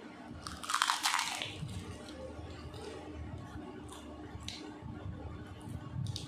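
A crisp fried fuchka (pani puri) shell crunches loudly as it is bitten into about a second in. It is followed by steady chewing with a few smaller crunches.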